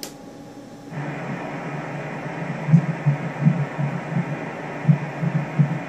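Fetal heartbeat at 12 weeks, played through an ultrasound machine's pulsed-Doppler speaker. After a click, a hissing whoosh with fast, uneven pulses starts about a second in.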